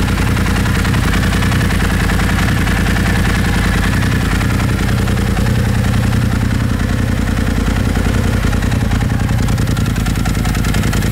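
The freshly installed D&M Stage 3 built engine in a four-seat Polaris RZR Turbo idling steadily on its first run, warming up to temperature.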